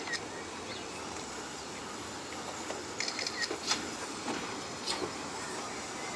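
Steam tank locomotive running slowly toward the station at a distance, a steady low running noise, with a few brief high chirps near the middle.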